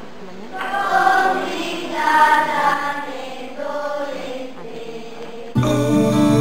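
A choir singing slow phrases with short pauses between them. About five and a half seconds in, it cuts suddenly to a different, steadier piece of music with strong low notes.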